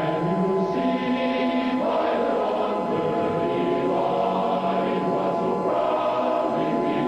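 A choir singing a national anthem in slow, sustained chords.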